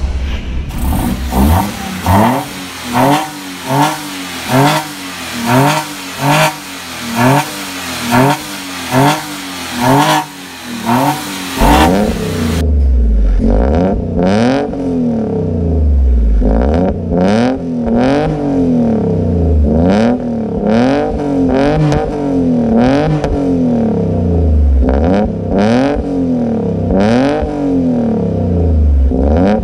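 Hyundai Eon's three-cylinder engine revving through aftermarket headers and an axle-back exhaust. Quick throttle blips come about once a second; from about twelve seconds in, longer revs rise and fall every couple of seconds.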